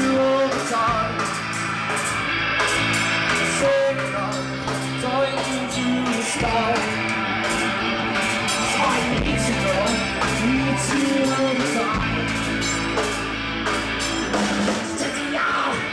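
Live rock band playing loud: electric guitars, bass guitar and a drum kit with steady cymbal hits, and a singer's voice over the band.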